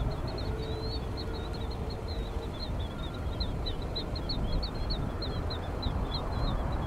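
Small birds chirping rapidly and continuously, several short high chirps a second, over a steady low background rumble.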